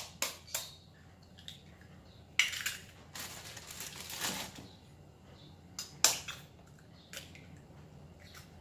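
Kitchen counter handling: a few sharp clicks and knocks as a bowl and other things are set down and picked up, with stretches of crinkling rustle from plastic being handled.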